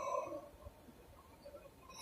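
A sleeping woman's breathy exhale after a snore, fading out about half a second in, followed by a quiet pause in her breathing before the next snore.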